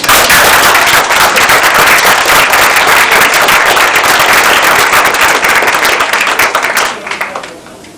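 Audience applauding: loud, dense clapping that starts suddenly and dies away about seven seconds in.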